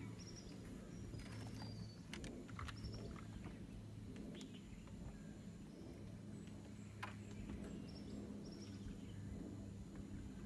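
Quiet forest ambience: small birds giving short, high chirps over a steady low hum, with a few faint clicks, the sharpest about seven seconds in.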